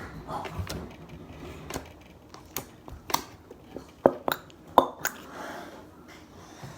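Slime being mixed with added glue, making irregular sharp clicks and soft squishes, the loudest clicks about four and five seconds in.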